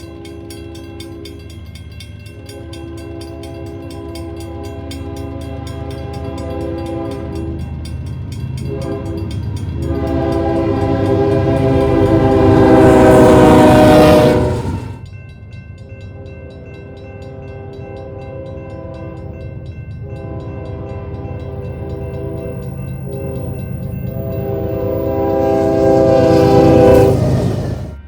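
Nathan K5HL five-chime locomotive air horn sounding its chord in long blasts, with the rumble of a passing train beneath. The horn grows louder as the locomotive approaches. It drops in pitch and cuts off about halfway through as the train passes, then builds again to a second loud peak that drops in pitch and cuts off near the end.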